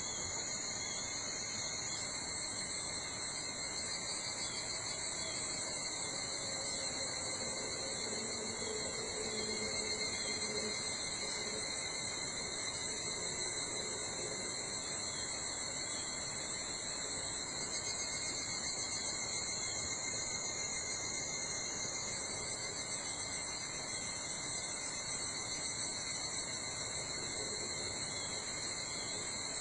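Steady chorus of insects in a summer forest at dawn, several continuous trills at different pitches overlapping without a break.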